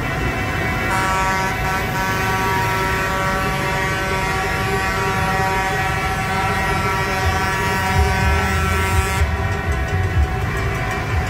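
A horn blares, held steady from about a second in until near the end, over the low, steady running of passing tractor engines.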